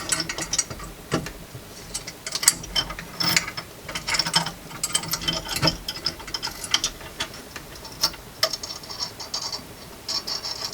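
Metal parts of a cast-iron hand grain mill clicking, clinking and scraping against each other as they are handled and fitted together, with irregular sharp clicks and a couple of longer scrapes near the end.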